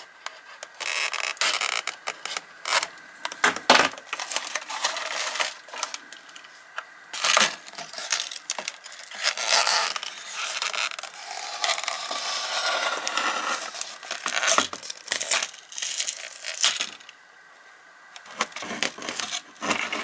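A metal hobby pick scraping and tape peeling off a foam RC airplane fuselage as it is handled, in irregular scrapes, clicks and rasps, with a longer rasping stretch in the middle.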